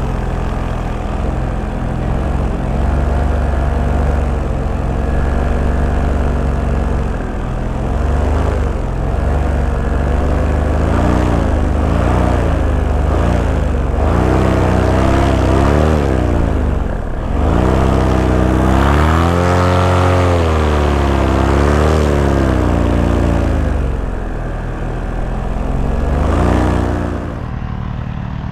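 Paramotor engine and propeller running in flight, the pitch swinging up and down several times as the throttle is worked, with a few deep dips, and a drop in level near the end.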